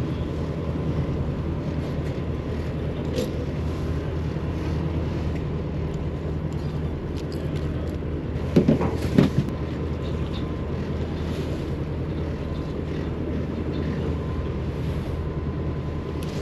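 Steady low drone of the party boat's engine running, with one brief louder voice-like sound about halfway through.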